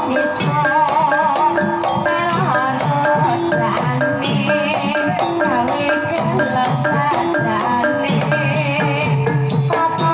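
Banyumasan gamelan playing a gending tayub: small bronze kettle gongs struck with padded mallets and a hand-played kendang drum keep a steady, even pulse, with a wavering high melody running over it.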